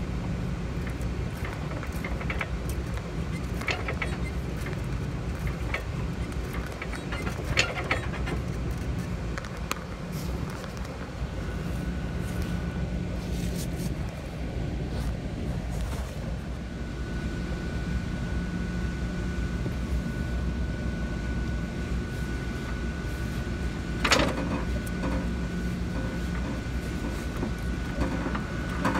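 Forklift engine running at a steady idle, with a few sharp knocks, the loudest near the end, and a faint steady high whine from partway through.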